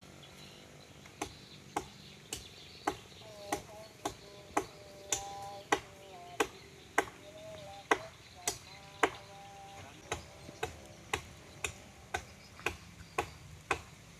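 Steady chopping into a tree branch by hand with a blade: sharp strikes about two a second, with one short pause partway through.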